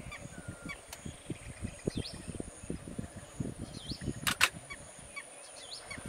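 Sri Lankan elephant feeding in marsh water, tearing up clumps of grass with its trunk and shaking them: irregular splashing and swishing, with two sharp slaps close together about four seconds in. Birds chirp and call in the background.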